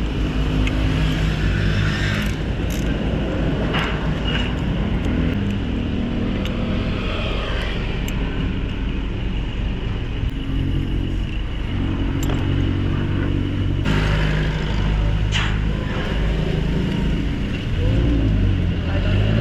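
Suzuki APV's four-cylinder engine idling roughly, with a few sharp clicks. It is misfiring from a cracked ignition coil that leaks its spark to the side instead of to the spark plug, which causes the vibration and low power.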